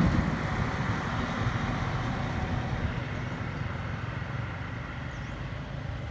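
Road traffic on a rural road: motorbike and truck engines going by as a steady low rumble that slowly fades.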